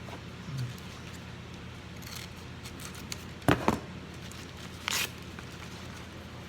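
Trading cards in plastic sleeves and holders being handled: a faint scrape, then two sharp taps about halfway through, and a short plastic slide or rustle about five seconds in, over a low steady hum.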